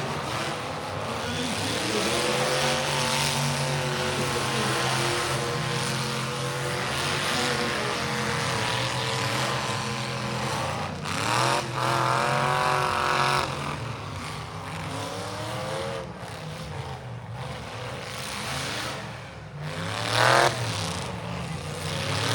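Several demolition derby car engines running at once. They rev up and down sharply about halfway through and again near the end.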